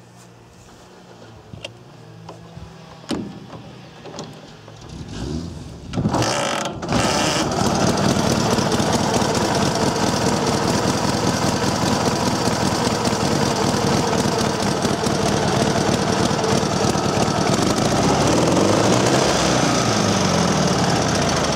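A few clicks, then the Dnepr motorcycle's air-cooled flat-twin engine starts about six seconds in, stumbles for a moment and settles into a steady run.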